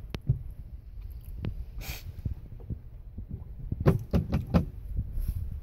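Gas-station squeegee knocking and wiping on a pickup's windshield, heard from inside the cab: scattered taps, one short swish about two seconds in, and a quick run of knocks around four seconds in, over a low rumble.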